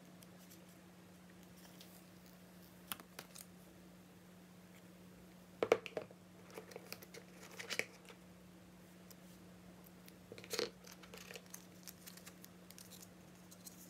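Unboxing handling noise: scattered soft clicks, taps and paper rustles as the phone, its cardboard box and the paper documents sleeve are handled, with sharper clusters about six seconds in and again near ten and a half seconds. A faint steady hum lies underneath.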